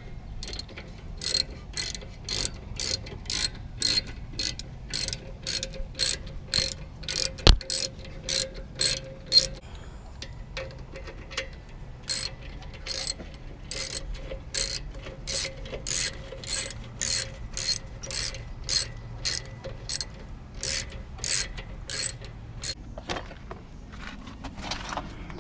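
Hand ratchet clicking in two long runs of evenly spaced clicks, about two or three a second, as the brake caliper mounting bolts are run in, with a pause in the middle. There is a single sharper knock about seven seconds in.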